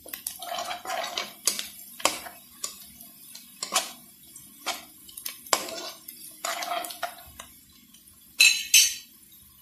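Spatula scraping and knocking against a nonstick wok while stirring chopped onion, ginger and garlic in ghee: irregular clinks and scrapes, with two louder clatters near the end.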